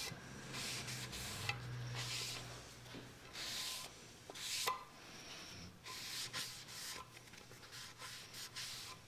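Cloth wiping over the damp surface of a wooden cutting board in a series of short rubbing strokes, spreading the misted water that raises the grain before final sanding. A faint steady low hum runs underneath.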